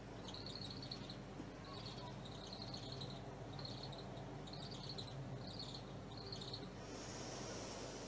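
Faint, high-pitched chirping from a small animal: about eight short chirps in loose groups, spaced roughly a second apart, then a soft hiss near the end.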